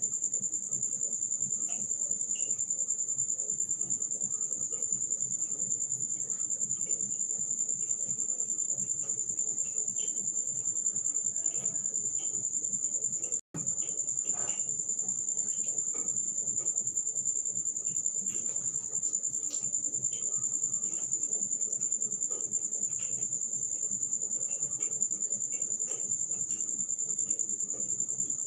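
Steady high-pitched insect chorus, one continuous shrill trill, over a low background rumble with faint scattered clicks. All sound drops out for an instant about halfway through.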